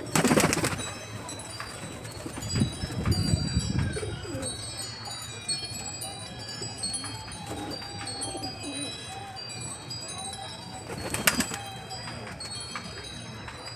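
Pigeons cooing against a steady background of wind chimes tinkling. There is a brief louder noisy burst at the start and another near the end.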